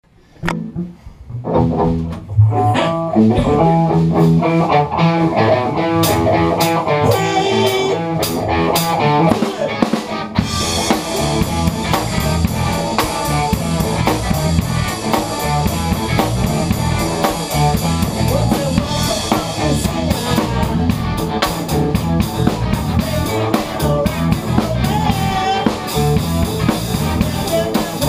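Live rock band playing in a small room: electric guitar chords with scattered drum hits open the song, and the full drum kit comes in about ten seconds in with a steady, busy cymbal beat under the guitar.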